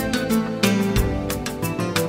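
Background music: a song with guitar over a steady drum beat.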